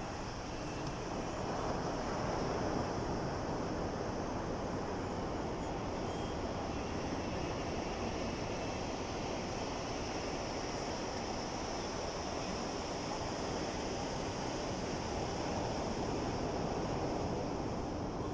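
Sea waves washing in, a continuous rush of surf that swells a little about two seconds in and again near the end.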